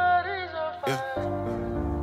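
Background music: a gliding melody line over a steady bass, with a sharp hit about a second in, after which the accompaniment changes.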